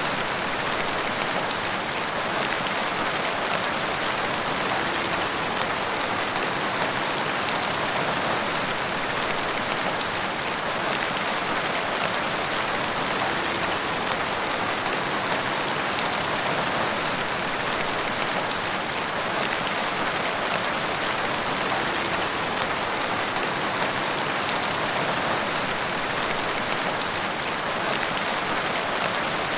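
Waterfall: a steady, unbroken rush of falling and splashing water, bright and hissy, without changes.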